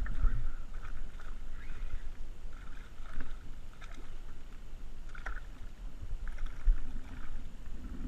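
A hooked fish splashing and thrashing at the surface beside a small boat, in short irregular bursts over a steady low rumble.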